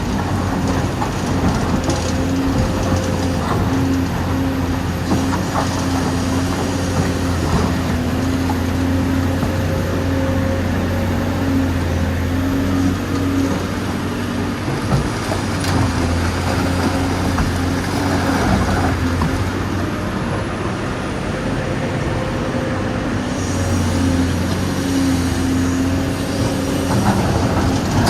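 Full-size diesel excavator engine running steadily, its low drone swelling and easing slightly as it works. This is recorded machine sound laid over a radio-controlled excavator.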